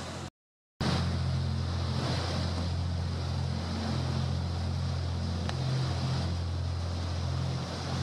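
A steady low engine drone under rushing wind and water noise. It cuts out completely for about half a second just after the start, then carries on unchanged.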